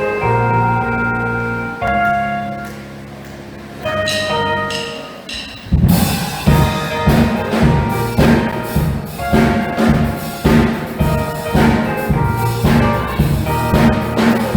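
Live band music opening a gospel song: held chords for about six seconds, then a drum beat with bass comes in and keeps a steady rhythm.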